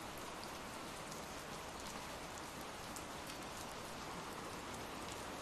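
Steady rain falling: an even hiss with many small, scattered drop ticks.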